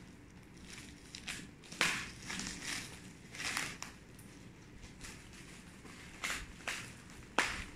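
Bubble wrap crinkling and rustling in short, irregular bursts as it is pulled and cut open around a box, with a sharp snap near the end that is the loudest sound.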